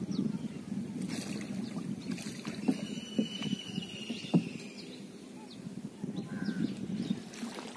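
Water sloshing and lapping against a wooden boat's hull as it is poled through shallow, weedy water, with a couple of light knocks. A faint thin whistle rises and falls briefly near the middle.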